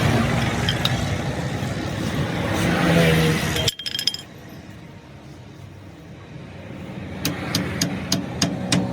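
Busy vehicle and background noise that cuts off abruptly, then a quieter stretch ending in a run of sharp, light metallic clinks, about three or four a second.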